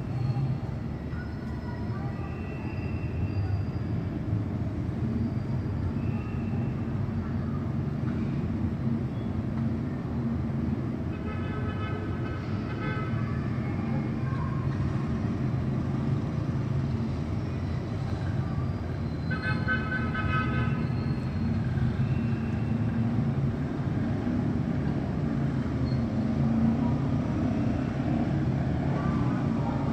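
Steady low rumble of distant city traffic heard from high up, with two brief high tones, about a third of the way in and again past the middle.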